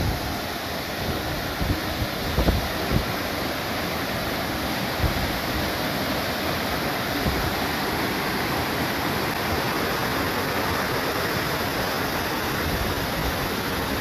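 Waterfall pouring down a rock face into a pool: a steady rush of falling water. A few low thumps hit the microphone in the first three seconds.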